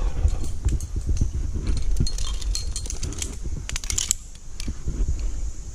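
Metal climbing gear (carabiners and quickdraws on a lead climber's harness) clinking and jangling, busiest from about two to four seconds in, over a low rumble of knocks and scuffs close to the microphone.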